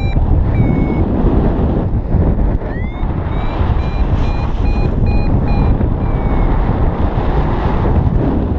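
Paragliding variometer beeping in short, regular tones about two a second, with a rising chirp about three seconds in; its intermittent beeps signal that the glider is climbing in lift. Heavy wind rushes on the microphone throughout.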